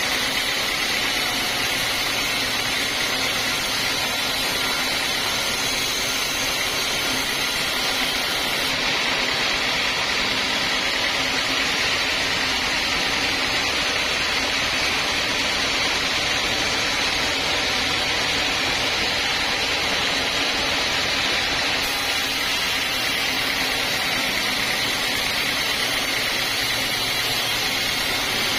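Homemade band sawmill ripping through an old teak beam: the band blade cutting steadily through the wood over the running machine, an even, unbroken sawing noise.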